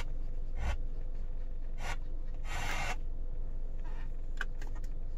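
Hyundai Avante factory radio being switched between FM stations by its preset and seek buttons: a few short bursts of noise, then a quick run of clicks near the end. A steady low hum from the idling engine runs underneath.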